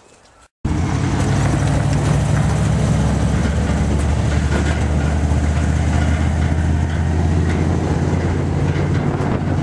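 Steady engine drone and rumble of a vehicle moving at an even speed along a dirt road, heard from on board the snowmobile. It starts abruptly about half a second in.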